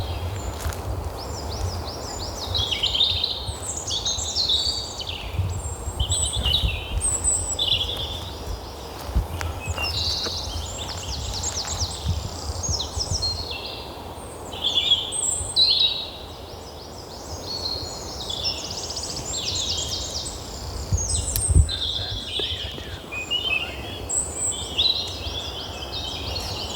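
Several songbirds singing together, a dense run of quick high chirps and trills, over a low rumble of wind or handling noise on the microphone. A single knock sounds about three quarters of the way through.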